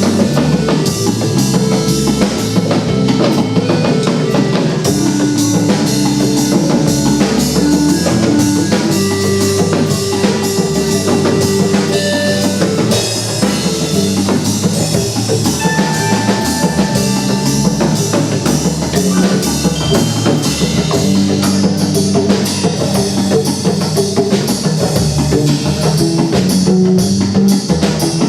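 Music: a drum kit keeping a steady beat, with bass and guitar.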